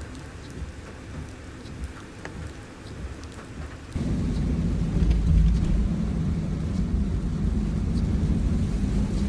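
Typhoon rain with scattered drops ticking. About four seconds in, a loud low rumble starts abruptly and keeps going.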